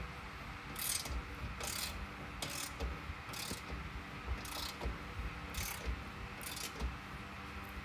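Ratchet wrench being worked in repeated strokes, a short burst of clicking about once a second, over light knocks.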